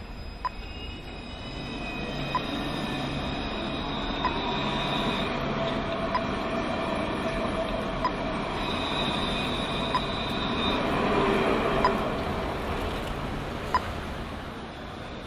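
Pedestrian crossing push-button unit ticking its locator tone about once every two seconds, while a tram passes on the street rails: its sound builds over several seconds with sustained high squealing tones from the wheels, loudest about three-quarters of the way through, then falls away.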